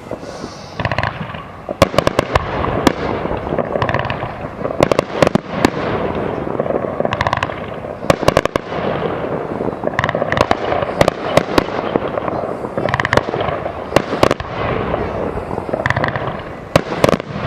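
Aerial fireworks display: shells bursting in quick succession, with many sharp bangs scattered throughout over continuous crackling.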